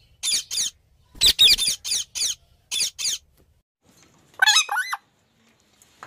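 Ring-necked parakeet calling: about ten short, sharp, high-pitched squawks, mostly in pairs, over the first three seconds. A quick run of lower, wavering notes follows about four and a half seconds in.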